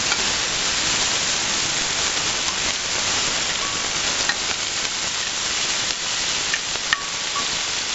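Cooked rice sizzling as it is scraped into a hot wok of peanut oil with browned garlic and onions, a steady hiss of frying. A few light clicks of the spoon against the glass bowl and wok come in the second half.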